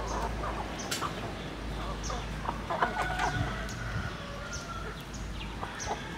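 A flock of chickens clucking as they feed, with short calls and sharp clicks scattered throughout and a few longer call notes about halfway through.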